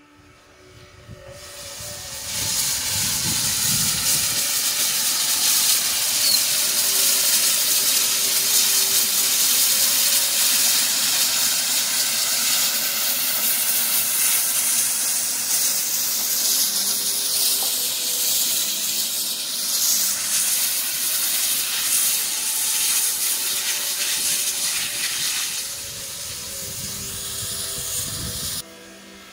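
Steam locomotive venting steam in a steady hiss that builds over the first two seconds, eases off late on and cuts off abruptly near the end.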